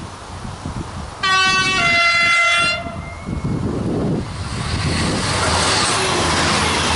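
X 72500 (X TER) diesel railcar sounding its two-tone horn, a lower note then a higher one, for about a second and a half. About four seconds in, the railcar passes close by, its diesel engine and wheels growing into a loud rumble and hiss.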